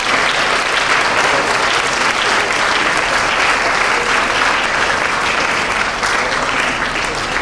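Audience applause: many people clapping at a steady level.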